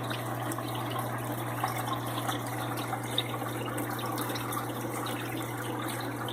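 Aquarium water trickling and splashing steadily, over a constant low hum.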